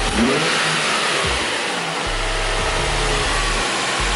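Nissan 350Z's freshly rebuilt VQ35DE V6 running after its first start, revved briefly near the start and then settling to a steadier run.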